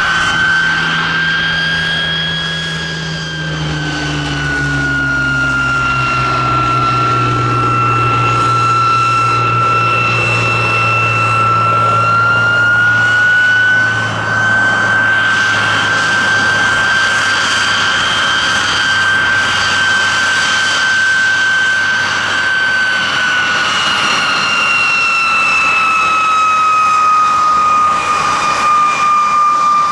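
De Havilland Vampire T.11's Goblin turbojet running at taxi power: a loud, steady jet whine whose pitch sags a little early on, rises again about halfway through, and falls away near the end.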